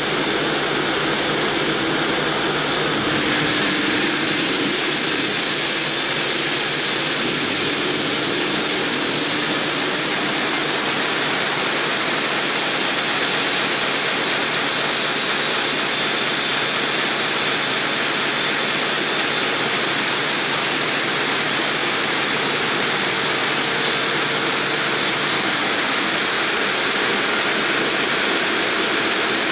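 Multi-blade granite block cutter's stack of large segmented circular saw blades cutting through a granite block under coolant water spray. A loud, steady grinding hiss, with a high whine that sets in a few seconds in and holds.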